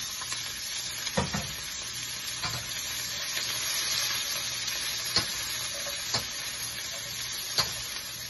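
Fresh vegetables sizzling in hot oil in a steel wok as they are stir-fried, with a spatula knocking and scraping against the wok several times.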